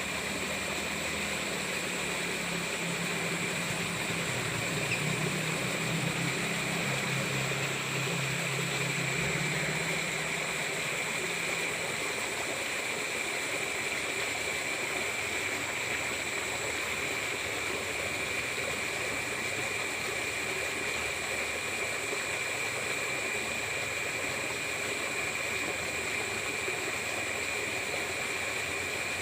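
Water in a drainage ditch flowing steadily after rain, a constant rushing, with a steady high-pitched tone above it. A low hum under it fades out about eleven seconds in.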